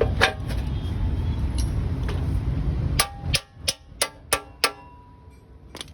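A low steady background rumble, then about six sharp metal-on-metal clinks with a brief ring, a few a second, from tool work on a motorcycle's front wheel axle as the wheel is refitted.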